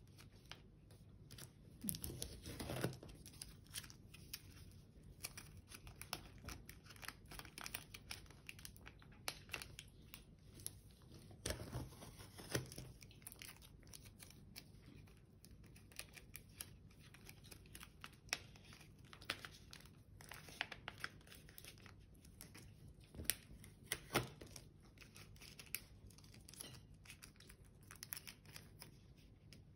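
A strip of white paper being folded and pressed into creases by hand, with irregular crinkling and rustling. Louder bursts of handling come about two seconds in, again near the middle, and once more toward the end.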